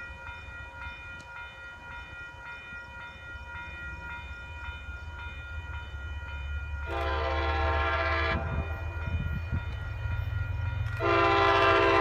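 MBTA HSP46 diesel locomotive approaching on a commuter train, its engine rumble growing louder, sounding two long horn blasts, one about seven seconds in and another near the end. Grade-crossing signal bells ring faintly and steadily underneath.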